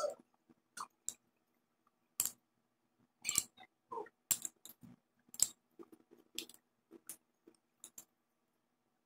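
Metal spoon clicking and scraping against a small ceramic cup and dabbing at a wet tissue, an irregular run of short taps and clinks.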